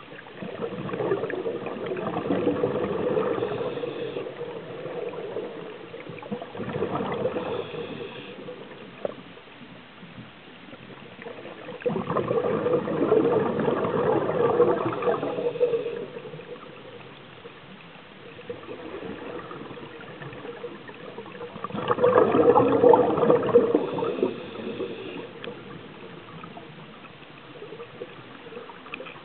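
Scuba regulator exhaust heard underwater: a diver breathing out, the air bubbling away in long surges of a few seconds, four times, with quieter hiss between breaths.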